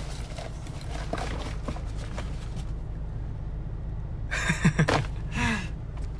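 Steady low rumble of a car in motion, heard inside the cabin, with faint rustling in the first couple of seconds. About four and a half seconds in, a brief two-part laugh stands out as the loudest sound.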